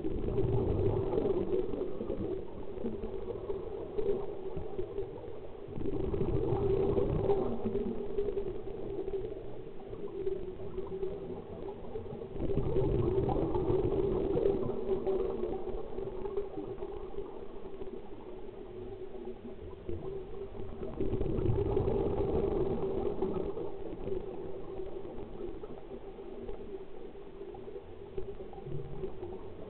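Scuba diver breathing on a regulator underwater: four bubbling exhalations, each swelling up and fading over a few seconds, some six to eight seconds apart, over a steady hum.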